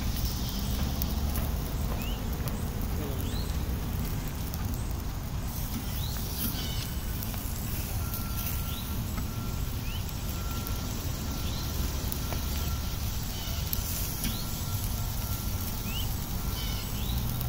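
Outdoor ambience: a steady low rumble with short, quick rising chirps every second or two. A thin steady tone sounds for several seconds in the middle.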